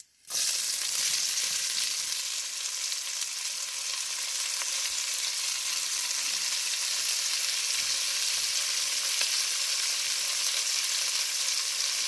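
Chopped onion frying in hot fat and beef drippings in a Dutch oven: a steady sizzle that starts suddenly just as the onion goes in.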